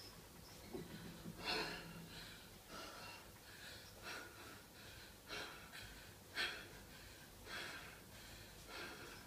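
A woman breathing hard and fast, out of breath from exercise: about seven loud gasping breaths, roughly one a second.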